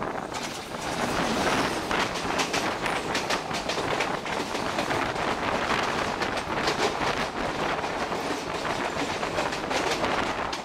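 Two Indian Railways express trains crossing at speed, heard from the doorway of one of them: the oncoming WDM-2A diesel locomotive goes by about a second in, then its coaches pass close alongside with dense, rapid wheel clatter over the rail joints.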